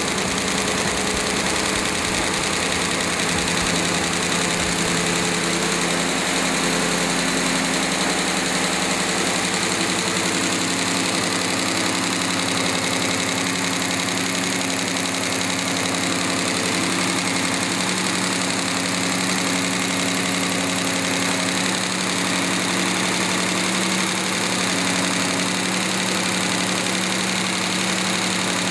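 Pushrod V8 engine with a springless valvetrain (grooved cam lobes driving the pushrods, no valve springs) running steadily at a constant speed with its rocker arms exposed.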